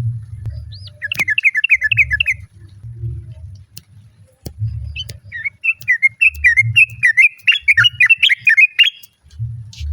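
Yellow-vented bulbul giving bubbly, rapidly warbling chatter calls in two phrases, a short one about a second in and a longer one from midway to near the end. A low rumble comes and goes underneath.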